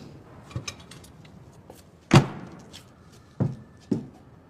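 A few separate knocks and thuds, the loudest about two seconds in, with quieter ones before and two more near the end.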